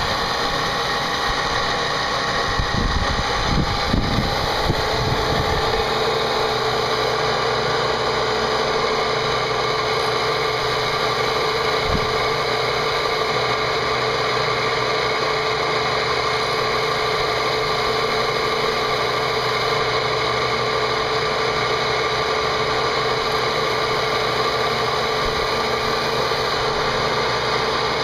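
CNC machine's spindle running and cutting a part, a steady mechanical whine and hum. There is uneven low rumbling for about the first six seconds, after which the sound settles into an even run.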